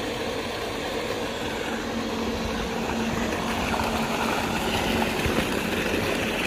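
A 7.5 hp electric water-pump motor running with a steady hum, and water gushing from the outlet pipe and splashing into a channel; the splashing gets louder from about halfway through.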